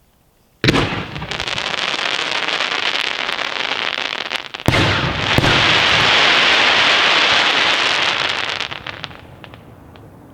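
Fireworks: a sudden bang about half a second in, followed by several seconds of dense crackling. A second bang comes near the middle, with louder crackling that dies away shortly before the end.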